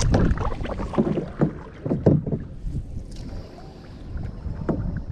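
Canoe paddling with irregular knocks and splashes of the paddles against the water and hull, over wind rumbling on the microphone. A faint steady high tone runs through the second half.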